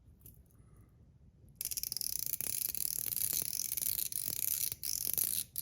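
Metal Top C fidget being twirled, its ball-spring detents clicking rapidly and steadily against the plate. The clicking starts about a second and a half in and stops just before the end.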